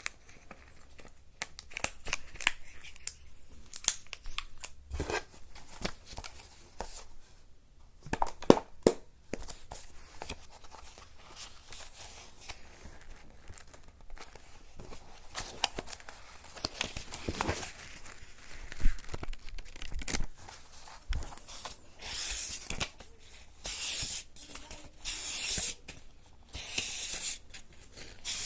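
ASMR trigger sounds made close to the microphone: scattered sharp clicks and taps, then longer scratchy, rustling swells in the last few seconds.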